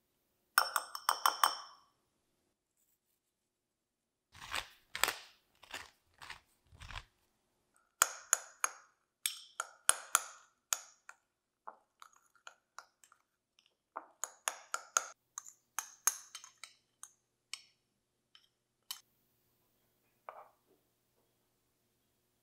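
A metal measuring spoon is tapped quickly several times against the rim of a glass bowl, ringing. Then a metal spoon clinks and scrapes around the glass bowl in irregular runs, stirring a mix of diced ham, corn and mayonnaise.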